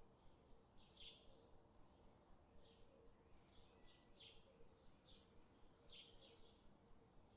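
Faint, short bird chirps repeating every second or so over a low, steady background hum.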